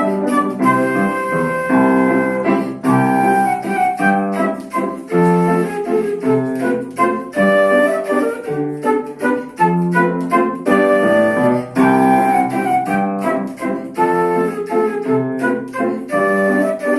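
A flute playing a melody over piano accompaniment, with held notes above repeated chords.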